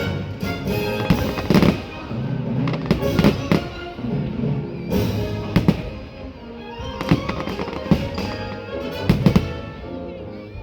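Fireworks going off in a rapid series of sharp bangs, with a cluster near the end, over loud orchestral show music.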